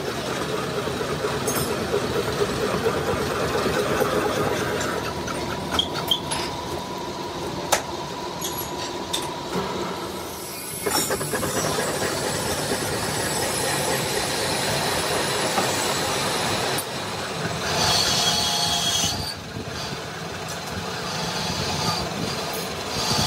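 Crankshaft machining equipment working metal: a loud, dense mechanical noise with a held tone through the first half, changing about halfway, and a shrill metallic squeal near three-quarters of the way through.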